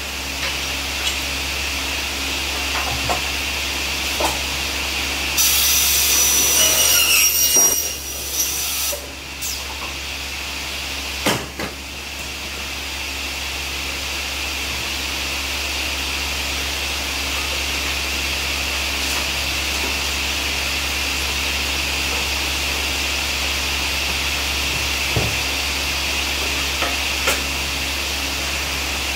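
Ginifon aluminium-profile cutting saw with its motor running and blade spinning, a steady high whine. About six seconds in, the blade cuts through an aluminium profile for two to three seconds with a loud shrill screech. A single sharp knock comes a few seconds later, and small metal clicks come as profiles are handled.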